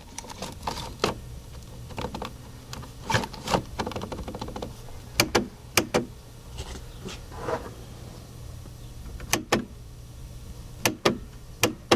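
Plastic 8-track cartridge being pushed into and worked in the slot of a 1976 Magnavox console's 8-track player: a dozen or so scattered clicks and knocks over a steady low hum. No tape plays; the owner finds the player's drive belt broken or missing.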